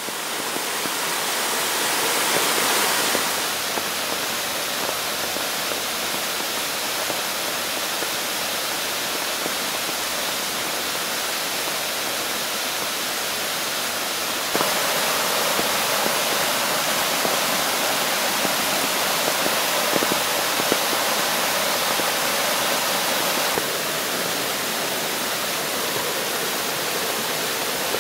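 Waterfall swollen by heavy rain: a steady, full rush of falling water. It fades in over the first second and shifts in loudness and tone a few times, about 3, 14 and 23 seconds in.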